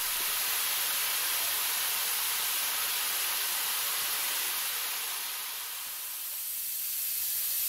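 Steady high hiss of rushing air and grit from a pipe grit-blasting and dust-extraction system. It eases slightly a little before the end, then rises again.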